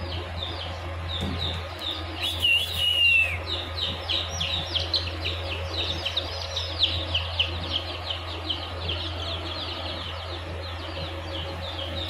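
Japanese shamo chicks peeping constantly: many short, high, down-slurred cheeps overlapping, with one longer wavering peep about two and a half seconds in. A low steady hum runs underneath.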